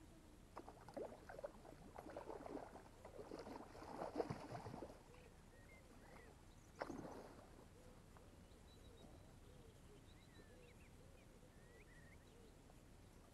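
Water splashing in bursts as a hooked trout thrashes and is drawn into a landing net at the water's edge, the loudest about four seconds in, with one more splash near the middle. Faint bird chirps follow.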